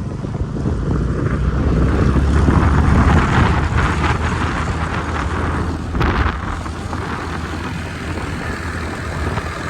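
Motor scooter on the move: a small engine running steadily under a loud rush of wind and road noise.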